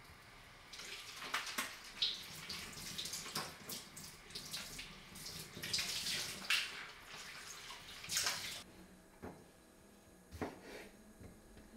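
Kitchen tap running into a stainless-steel sink, the stream splashing irregularly as cherry tomatoes are rinsed under it by hand. The water cuts off suddenly near the end, followed by a few light knocks.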